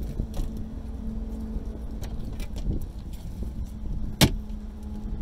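Car engine idling in neutral: a steady low hum heard from inside the cabin. A single sharp knock sounds about four seconds in.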